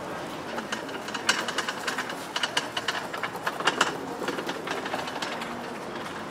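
Pedestrian street ambience with a run of irregular sharp clicks and clatters for a few seconds, thickest from about one to five seconds in.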